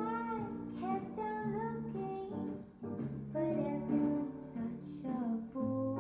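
Background music: a melodic instrumental with plucked-string chords under a gliding lead line.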